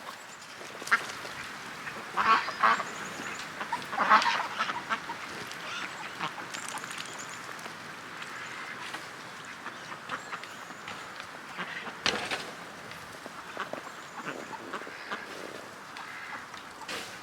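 Ducks quacking in short bursts, loudest and most clustered about two and four seconds in, with a few more calls later.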